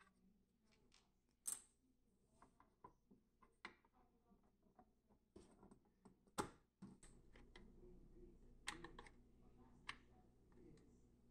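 Scattered light clicks and taps of small parts being handled, the sharpest about a second and a half in and about six seconds in.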